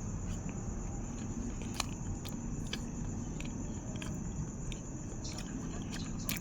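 A person chewing food, with small sharp mouth clicks scattered throughout over a steady low background rumble.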